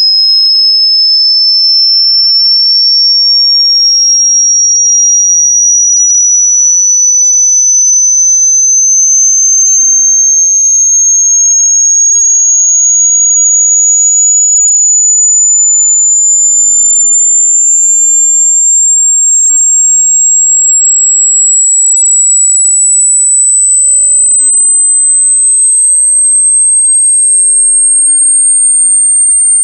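A loud, high-pitched electronic sine tone, a single pure pitch with no overtones, gliding slowly and steadily upward throughout.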